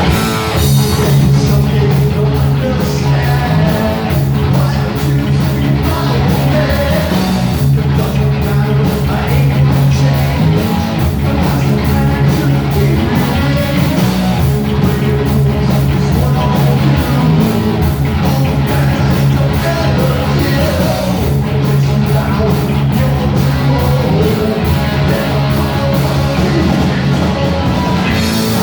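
Heavy metal band playing live, loud and steady, with distorted electric guitars, bass and drums, and singing over them.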